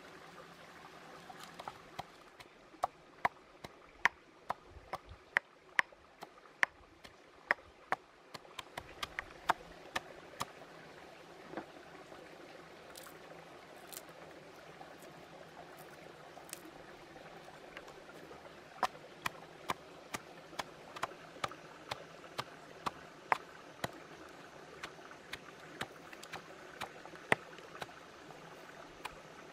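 Sharp, irregular knocks and taps of food being prepared by hand, ending with a pestle pounding red chilies and garlic in a mortar, over a steady background hiss.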